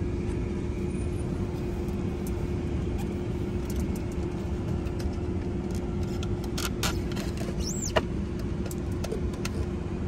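Steady hum of a car idling, heard from inside the cabin, with a few light clicks and a brief high chirp about eight seconds in.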